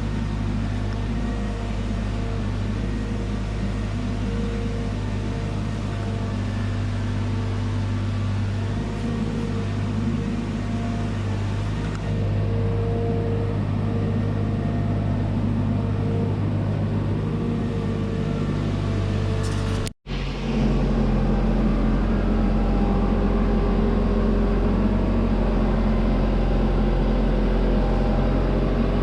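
Engine of a delivery truck running steadily, with a short break about two-thirds of the way through where the sound cuts out.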